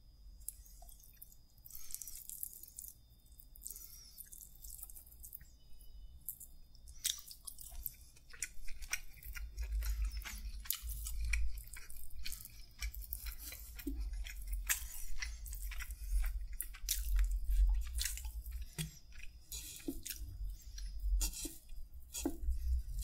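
Close-miked chewing and wet mouth clicks of a person eating with his hands, faint for the first several seconds and then dense and irregular.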